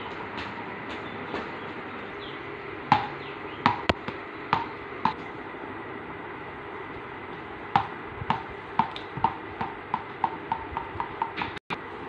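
Small plastic ball bouncing on a tiled floor: a few separate bounces around three to five seconds in, then from about eight seconds a dropped ball bouncing quicker and lighter until it settles.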